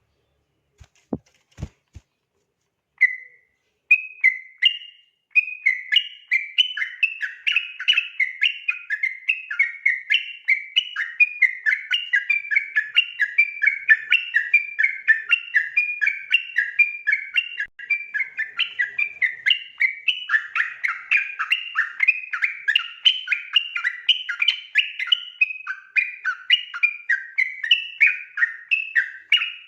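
Yellow-vented bulbul (trucukan) singing 'ropel': a rapid, unbroken run of short warbled notes that starts about three seconds in, after a few faint clicks.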